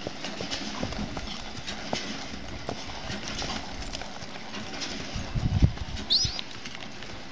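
Hoofbeats of a paint gelding walking on dry, packed dirt, a steady clip-clop. About five and a half seconds in, a brief low thump is the loudest sound, followed just after by a short high chirp.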